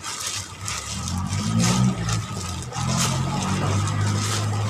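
Rhythmic swishing and crinkling of a plastic-bag-covered hand squeezing and kneading flour and water into dough in a plastic bowl, over a low engine hum that strengthens about a second in.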